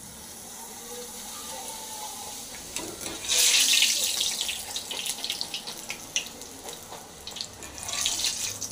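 Puri deep-frying in hot oil in a kadai: the oil sizzles and crackles, growing much louder about three seconds in as the puri puffs up.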